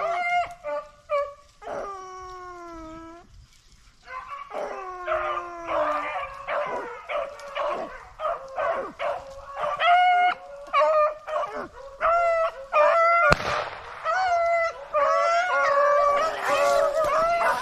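A pack of rabbit hounds baying on a trail: long falling howls and many short, rapid bays and yips, growing denser after a brief lull about four seconds in. One sharp crack sounds about two-thirds of the way through.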